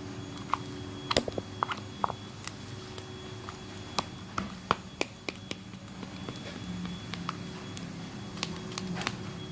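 Homemade slime being kneaded and stretched in the hands, making scattered small clicks and sticky pops, over a faint steady hum.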